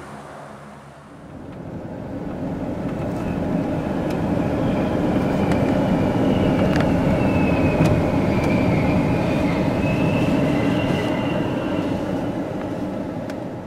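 Military aircraft passing low overhead: a rumbling engine noise swells to a peak midway and fades again, with a high engine whine on top that drifts slightly in pitch as it goes by.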